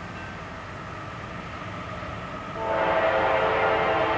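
Horn of an approaching locomotive: a faint chord fades out just after the start, then a loud multi-note horn blast begins about two and a half seconds in and holds steady, over a low rumble.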